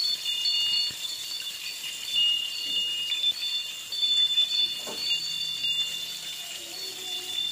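Egg-battered eggplant frying in oil in a stainless steel pan: a sizzle with several steady high-pitched tones that break on and off, and a few faint ticks.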